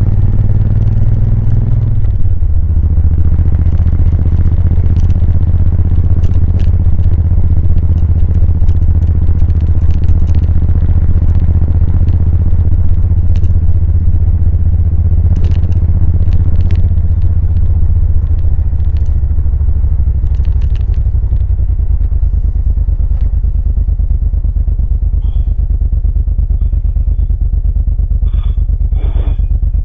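2000 Suzuki VL1500 Intruder LC's V-twin engine and exhaust running under way, a steady low rumble with light ticking over it. The engine note drops about two seconds in and settles lower again past the middle.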